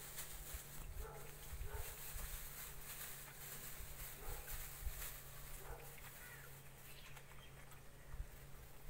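Chickens, a rooster and hens, clucking now and then in short separate calls as they peck at scattered feed.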